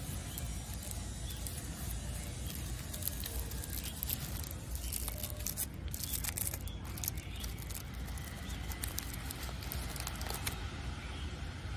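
A chocolate truffle's shiny twist wrapper and inner foil crinkling as they are unwrapped by hand, a busy run of crackles from about three seconds in until near the end, over a steady low rumble.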